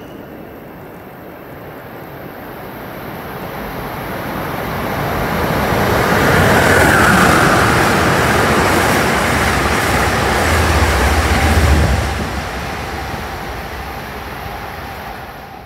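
Amtrak passenger train passing through the station at speed: a rushing rumble of wheels on rail that builds over several seconds, is loudest in the middle, then fades as the train moves away, cutting off suddenly at the end.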